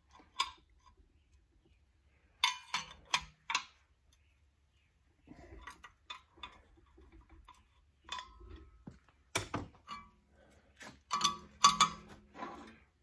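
Ratchet wrench clicking in short bursts with metal clinks as the nut on a homemade threaded-rod cylinder-liner puller is tightened down.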